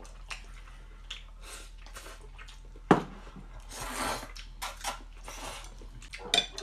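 Someone eating stir-fried noodles from a ceramic bowl with chopsticks: slurping, chewing and chopsticks scraping and clicking against the bowl. One sharp clack about three seconds in is the loudest sound, with another near the end.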